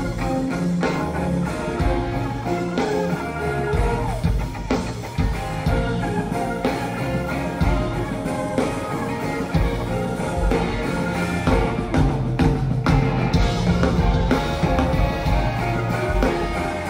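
Live rock band playing an instrumental passage between sung verses: electric guitars over bass and drum kit, heard through an audience tape.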